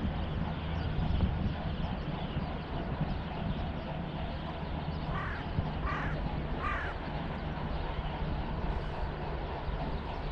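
A bird calling three times, a little under a second apart, over a steady low hum and wind rumble.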